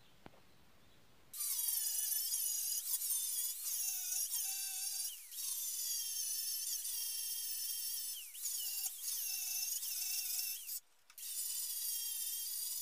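Electric angle grinder with a 40-grit flap disc grinding welded steel flush. It starts about a second in as a high whine, its pitch sagging each time the disc bites into the metal and recovering as it eases off, with a short break about eleven seconds in.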